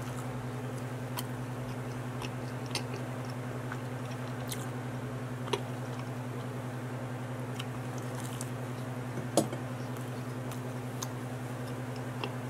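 Close-miked chewing of a mouthful of pepperoni pizza, with scattered wet mouth clicks, the sharpest about nine and a half seconds in, over a steady low hum.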